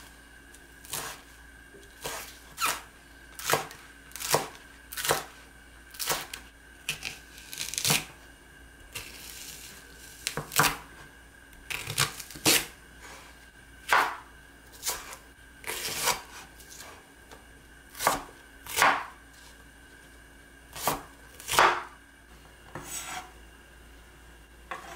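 Kitchen knife slicing leek and perilla leaves on a wooden cutting board: separate, unhurried cuts at an uneven pace of about one a second, each ending in a knock of the blade on the board.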